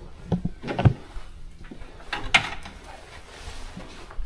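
A few dull knocks, the loudest about a second in, then a short scrape a little after two seconds: objects being handled and moved.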